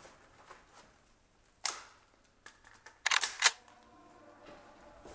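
Airsoft gun shots: a single sharp crack, then about a second and a half later a quick burst of around five shots.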